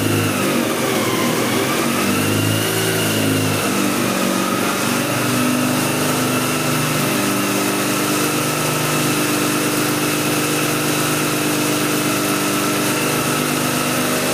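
Supercharged Mazda Renesis 13B two-rotor rotary engine running on an engine dyno. Its speed dips and rises over the first few seconds, then holds steady, with a high whine over the engine note that follows its speed.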